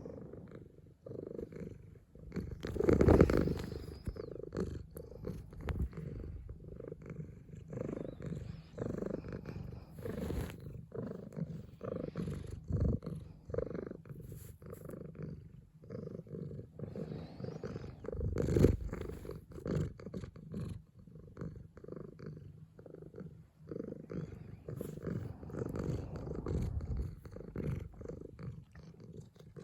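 Somali cat purring in a pulsing in-and-out rhythm of about one cycle a second, with two louder moments, a few seconds in and again past the middle.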